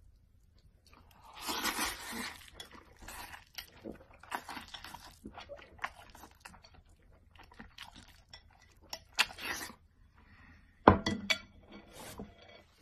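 A person eating from a bowl with chopsticks close to the microphone: a long slurp of noodles, then repeated chewing and crunching sounds with light clinks of chopsticks against the bowl, and a sharp knock a little before the end.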